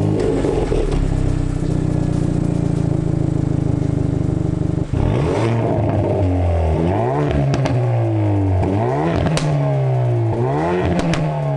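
Hyundai i30 N Performance's 2.0 turbocharged four-cylinder heard at its twin tailpipes, idling at a steady, raised speed. About five seconds in, the idle drops, and the engine is then blipped several times in quick succession, the pitch rising and falling with each rev. A few sharp cracks from the exhaust come between the revs.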